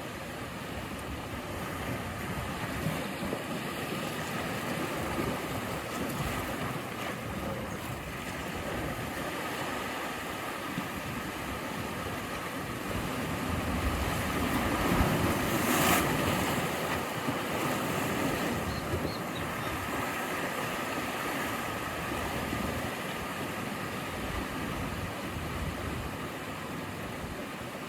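Sea waves washing in as a steady surf, swelling to one louder crash about halfway through, then settling back.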